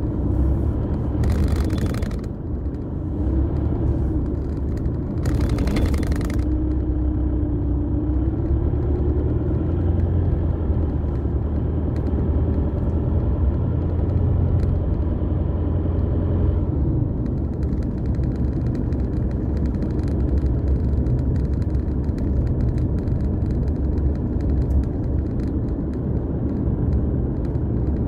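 A car driving, heard from inside the cabin: a steady low rumble of engine and tyres on the road, with the engine note wavering during the first ten seconds. Two brief louder rushes of noise come in the first seven seconds.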